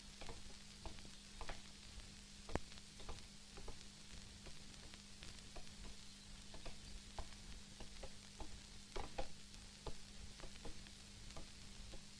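Faint irregular crackle of scattered clicks over steady hiss and a low hum: surface noise of a worn old film soundtrack.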